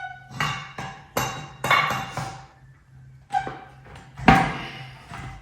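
Hammer blows on the steel of a Ford 9-inch rear axle assembly, struck to shock a seized axle bearing loose. About seven sharp metal strikes come at an uneven pace, each with a short ring, and the loudest falls about four seconds in.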